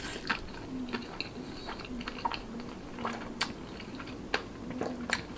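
Close-miked chewing of a mouthful of chicken cheese naan: soft, irregular wet mouth clicks and smacks.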